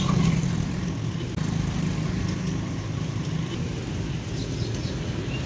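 Steady low rumble of street traffic, with no distinct single event.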